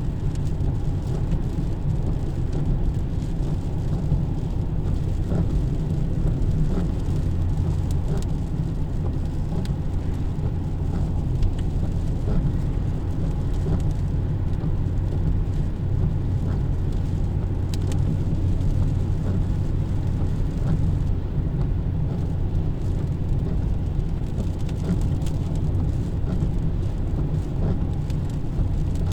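Steady low rumble of road traffic in the rain, unbroken throughout, with faint scattered ticks above it.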